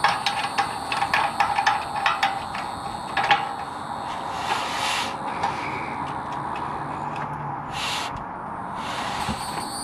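Quick metallic clicks and taps from hand work on the exhaust pipe clamp hardware, fitted to cure a rattling exhaust valve. The clicks run for about three and a half seconds, followed by two brief rushes of noise.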